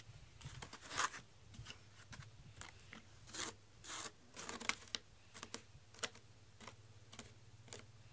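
Fingers rubbing and scraping the corrugated cardboard surface of a round cat scratcher bowl to work loose shed cat hair: a run of short, irregular scratchy strokes.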